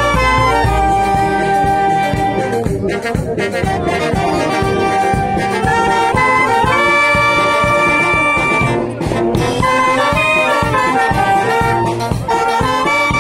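A brass band playing a tune: clarinets and alto saxophones carry the melody in held notes over sousaphone bass, with a steady beat underneath.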